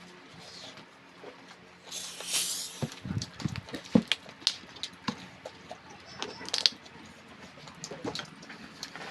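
A person eating spicy instant noodles: a noisy slurp about two seconds in, then a run of short clicks and smacks from chewing and utensils.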